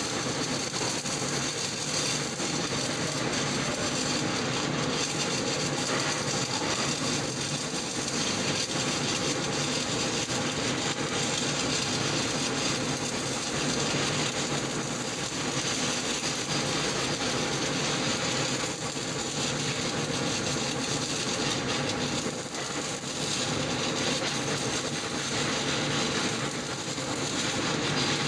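Shielded metal arc (stick) welding with an E6010 electrode: the arc crackles and sizzles steadily as a bead is run, dipping briefly twice in the second half.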